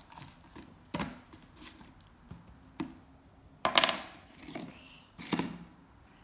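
A plastic tub and a frozen toy being handled on a table: several separate knocks and clatters, the loudest a little before four seconds in.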